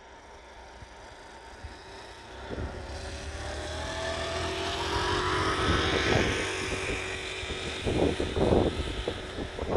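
A motor scooter riding past close by, its engine note climbing as it comes near and fading as it goes away. Low bumps of wind on the microphone near the end.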